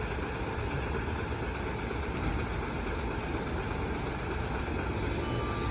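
A large vehicle's engine idling: a steady low rumble.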